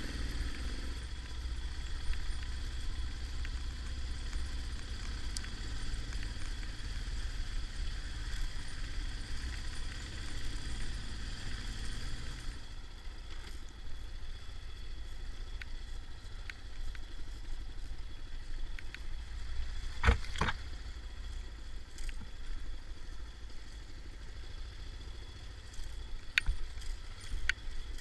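Yamaha XT 600 motorcycle running, with a steady low rumble. A few sharp knocks stand out, a pair about two thirds of the way through and a couple near the end.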